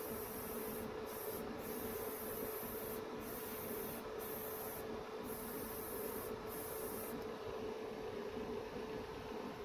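Gravity-feed airbrush spraying paint in short bursts: its high air hiss switches on and off about seven times, then stops about seven seconds in. Under it runs a steady mechanical hum.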